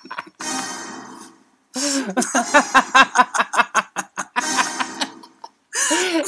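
A woman laughing loudly in runs of quick bursts, broken by breathy pauses.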